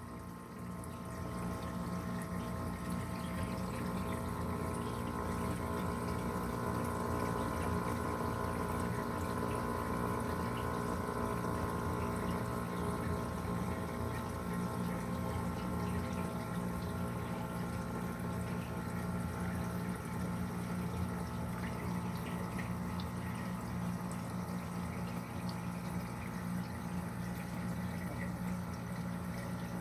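DC pump of an Inspire200 protein skimmer running with a steady hum and a set of held tones over water and air bubbling. The owner takes this for an abnormal noise from the pump, together with the skimmer's foam production getting worse.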